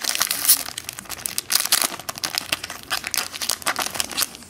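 Foil wrapper of a Contenders football card pack crinkling and tearing as it is opened by hand: a dense run of sharp crackles, loudest about half a second in and again about a second and a half in.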